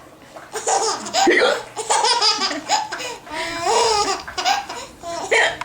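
A young child laughing in a string of short bursts, broken by hiccups.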